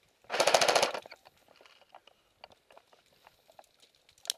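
Airsoft electric rifle firing a short full-auto burst, a rapid even rattle of about twenty shots a second lasting under a second. Scattered faint clicks follow, with one sharp tick near the end.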